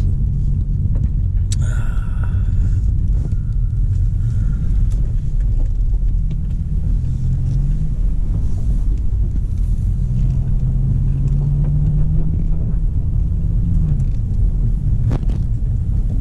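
Stage-1-tuned BMW's engine and exhaust droning at low speed, heard from inside the cabin. The pitch rises about two-thirds of the way through as the car speeds up, then drops back as it slows.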